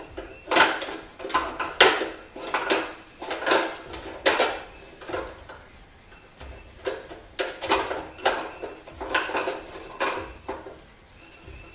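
Irregular metal clinks and clanks of a wrench working the bolts and steel back stop on an abrasive chop saw's base, several knocks in quick clusters with short pauses between. The saw itself is not running.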